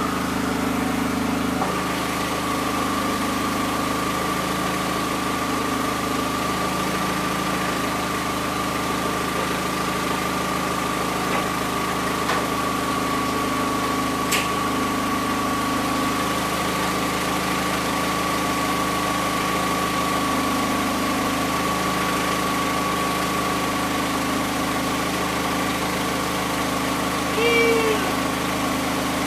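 Turbocharged Nissan GA16DE 1.6-litre four-cylinder idling steadily, with a constant whine over the engine note. The owner says the engine is overheating and running very rich.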